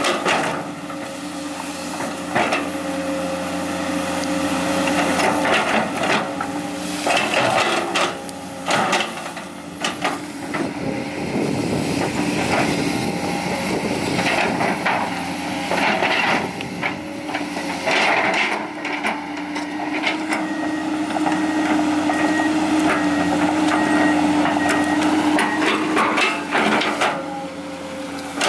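Komatsu PC200 hydraulic excavator's diesel engine running with a steady hum while the bucket digs through and drags garbage, with repeated clanks, knocks and crunching of refuse and debris throughout.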